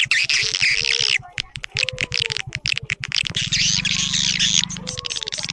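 Recorded swiftlet lure call: dense, rapid twittering chirps and clicks, with a low buzzing hum that comes in about three seconds in.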